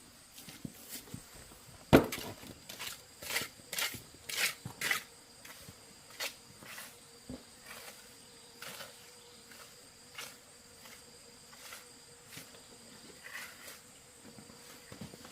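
Irregular sharp knocks and clicks, loudest about two seconds in, several in quick succession over the next few seconds, then sparser. A faint steady high insect drone runs beneath them.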